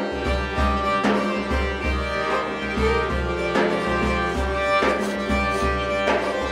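Instrumental music: held melody notes over a steady low beat, about two beats a second.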